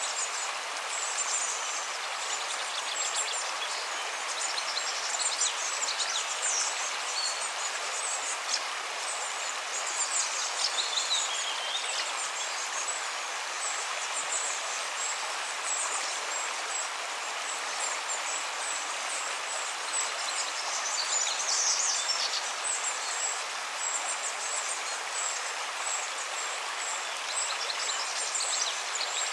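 Nature ambience: a steady rush of running water with clusters of high bird chirps every few seconds, one falling in pitch about eleven seconds in.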